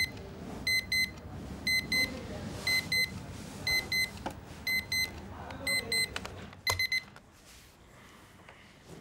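Orpat quartz alarm clock beeping: short, high electronic beeps in pairs about once a second. About seven seconds in the beeping cuts off with a click.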